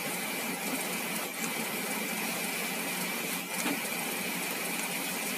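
Steady background hiss with a faint high whine, broken by a couple of soft clicks about one and three and a half seconds in.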